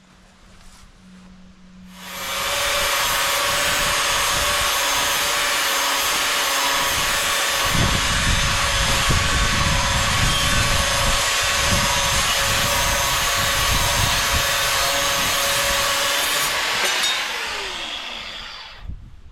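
Metabo angle grinder spinning up about two seconds in and running with a steady whine, cutting through two clamped pieces of steel flat stock at once from about eight seconds. It is switched off and winds down near the end.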